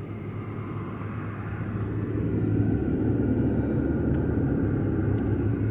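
A low, steady rumbling noise that swells about two seconds in.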